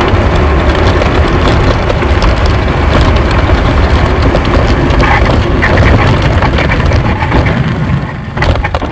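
Soapbox cart rolling fast downhill: loud, steady rumble and rattle of its wheels and body on the tarmac, mixed with wind on the onboard microphone. Near the end a few sharp knocks come as the cart runs off the track onto the grass.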